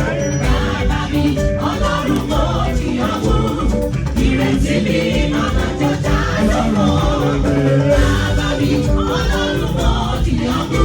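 Live gospel music with singing over a steady beat, played loud.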